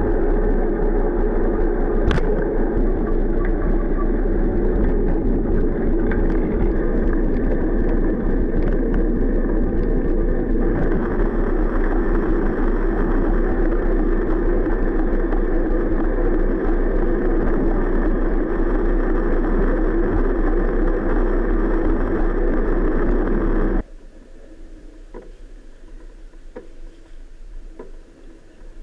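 Steady wind and tyre noise on a bicycle-mounted action camera's microphone while riding. It drops off suddenly near the end, leaving a much quieter outdoor background with a few faint ticks.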